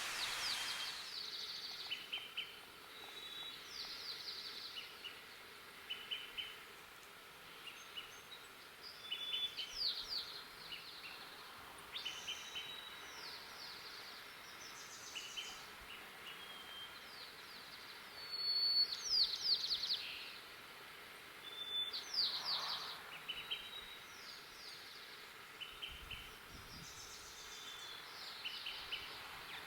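White-crowned sparrows singing: several phrases, each a short clear whistle followed by a run of quick falling notes, with scattered short chirps between them.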